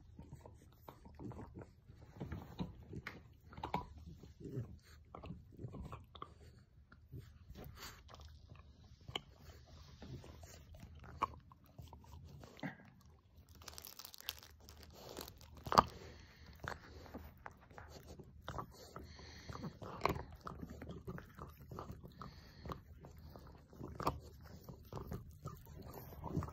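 French bulldogs gnawing on hard dog chews: irregular crunching and scraping of teeth on the chew, with one much louder click about two-thirds of the way through.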